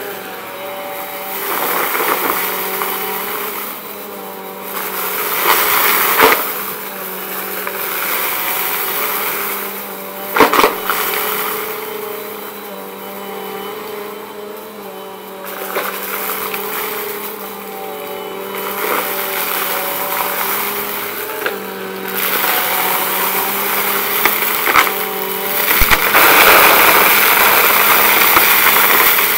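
Bissell PowerForce Compact upright vacuum running with a steady motor hum while it is pushed back and forth over carpet, sucking up dry crunchy debris that rattles and crackles through the nozzle. There are swells of louder crunching as it goes into the pile, a few sharp clicks, and it is loudest near the end.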